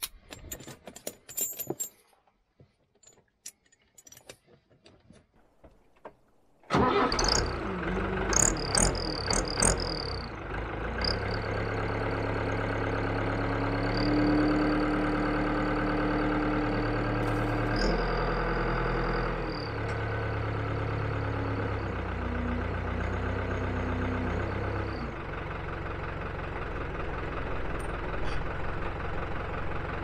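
Tyre-chain links clinking for a moment, then quiet. About seven seconds in, a 1996 New Holland L85 tractor's diesel engine comes in suddenly and runs steadily, its speed stepping up and down several times.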